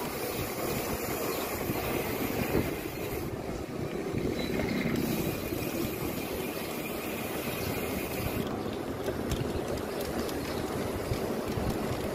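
Steady rumbling noise of a mountain bike rolling along an asphalt street: tyre rumble and wind rushing over the microphone.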